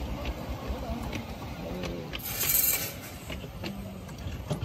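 Miniature steam railway train rolling past close by, its wheels clicking over the rail joints every half second or so. About halfway through, a loud hiss of steam lasts under a second.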